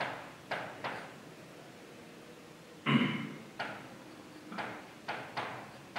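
Marker writing on a whiteboard: a string of short taps and strokes at an uneven pace, with one longer, louder stroke about three seconds in.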